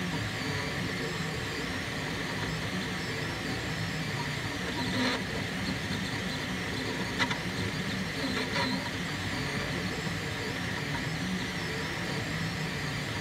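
Monoprice Mini Delta 3D printer printing: its stepper motors whir in a constantly shifting pattern as the delta arms move the print head, over a steady hiss. There is a sharp click about seven seconds in, and briefly louder whirs a couple of seconds before and after it.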